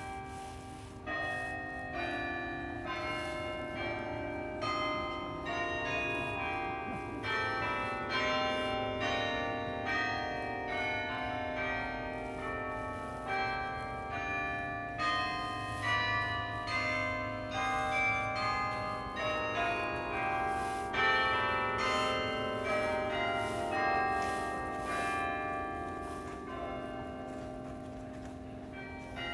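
Carillon bells playing a melody, struck notes following one another several times a second, each ringing on under the next.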